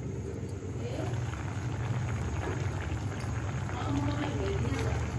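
Thick fish curry gravy simmering in a steel kadhai, a dense crackling bubble from about a second in, over a steady low hum.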